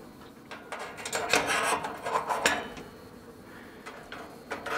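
Metal kebab skewers being set into the notches of a stainless-steel grill wind guard: a few short metallic scrapes and clicks in the first half, and another near the end.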